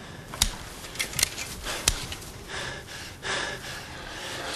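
Several sharp clicks and knocks in the first two seconds, then a man's heavy breaths.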